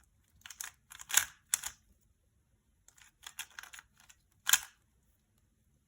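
Rubik's cube being turned through a series of moves: short plastic clicks and clacks in small quick clusters, separated by brief pauses.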